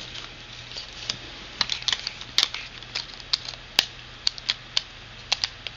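Irregular small clicks and taps from fitting the battery and snapping the battery cover back onto an LG KE850 Prada phone, over a faint steady low hum.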